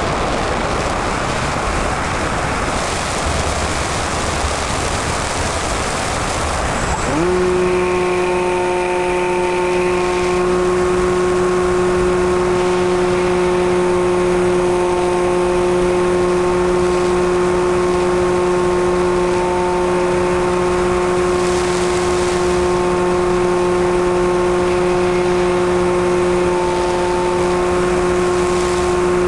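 Wind rushing past the onboard camera of a Multiplex EasyStar II electric RC glider, then about seven seconds in its electric pusher motor and propeller spin up quickly and run on at one steady pitch, a constant hum with a whine above it.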